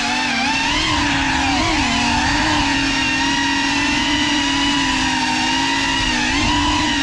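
GEPRC Cinelog35 ducted cinewhoop FPV drone on 6S, its four brushless motors and propellers whining at a fairly steady pitch of several close tones. The pitch wavers slightly with small throttle changes, with a brief dip and rise about six seconds in.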